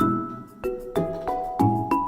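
Background music: a melody of struck, ringing notes, a few a second.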